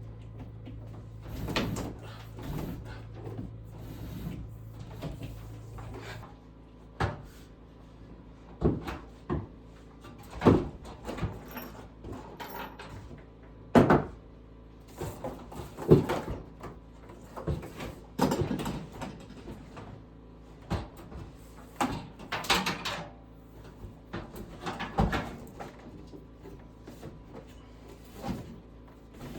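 Irregular knocks, clicks and clatter, a dozen or so sharp ones spread unevenly, as from objects being handled and set down. A low steady hum cuts off about six seconds in.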